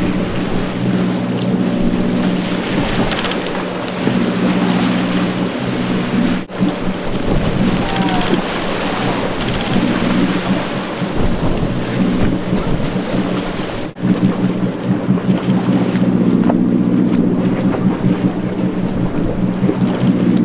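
Boat engine running steadily, with wind on the microphone and sea noise. The sound drops out briefly twice at cuts.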